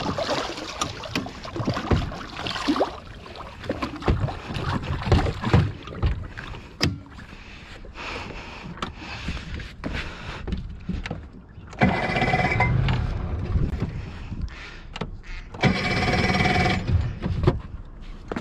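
Knocks and clatter of gear being handled aboard a small moored boat, with a hinged seat being lifted and things moved about. Two steady humming noises, each about a second and a half long, come around twelve and sixteen seconds in.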